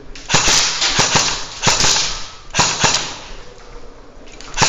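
Airsoft gunfire: short groups of two or three sharp shots roughly every second, each ringing in a hard, empty hall, then a quieter spell and a faster string of shots near the end.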